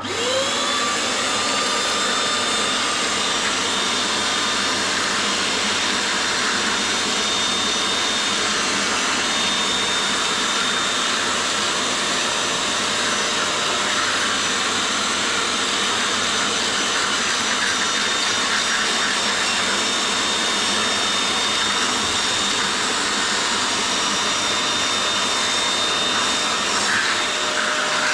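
Small portable upholstery spot cleaner, a wet vacuum, switched on: its motor spins up with a brief rising whine, then runs with a steady rush of air and a high whine.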